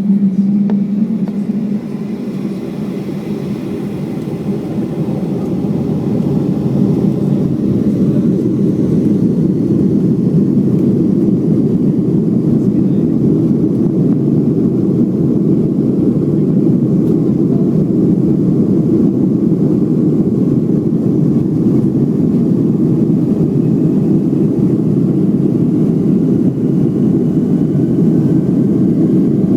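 Boeing 757-200 jet engines and airflow heard from inside the cabin: a loud, steady rush that builds over the first several seconds and then holds at high thrust.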